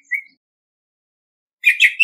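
Orange-headed thrush singing: one short whistled note right at the start ends a phrase, then after a pause of more than a second the next phrase begins near the end with quick whistled notes.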